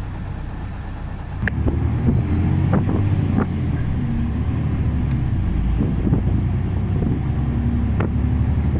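City bus running along the road, heard from inside the cabin: a steady engine and road rumble that grows louder about a second and a half in, with a few clicks and rattles.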